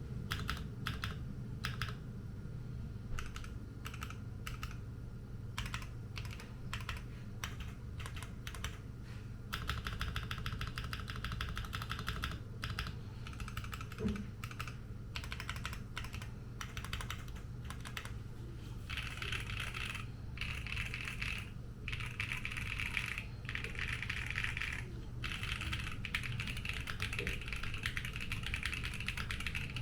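Typing on a Monsgeek M1W mechanical keyboard with stock Akko Cream Yellow linear switches and double-shot OEM-profile keycaps. It starts with separate keystrokes, picks up to steady typing about ten seconds in, and turns to fast continuous typing after about nineteen seconds. The stock sound is a little thin ('lép').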